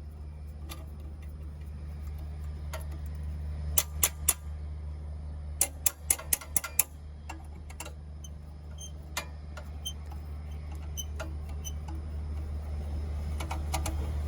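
Scattered sharp metallic clicks and clinks of hand tools and bolts being worked while a generator is reassembled, some in quick runs of several clicks, over a steady low hum.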